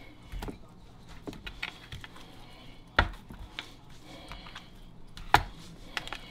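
Steaks being handled in a pan as oil and seasoning are rubbed in: a few sharp taps and knocks, the loudest about three seconds in and again a couple of seconds later, over a faint steady hum.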